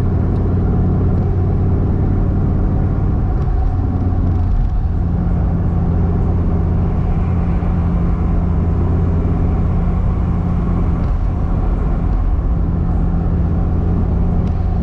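Dodge Viper V10 running steadily while the car cruises, with an even drone and road noise; the engine note dips and comes back about four seconds in.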